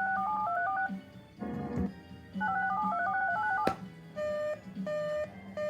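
Two quick strings of telephone touch-tones (DTMF), each about a second long, with a sharp click after the second string. Then a run of evenly spaced beeps, about one and a half a second, over a faint steady hum.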